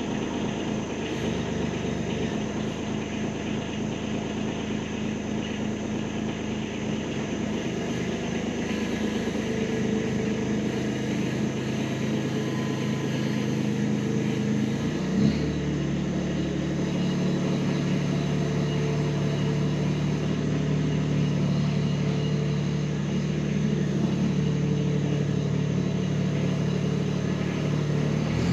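Kubota B2301 tractor's diesel engine running steadily while it powers the BH70 backhoe. About halfway there is a brief clank and the engine note shifts.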